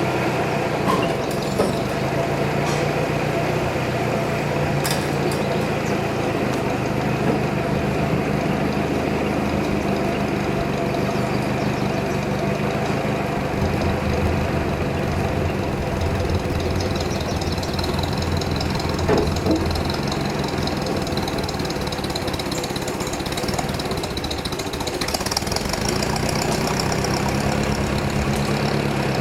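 Sawmill's engine running steadily, its low note shifting a few times.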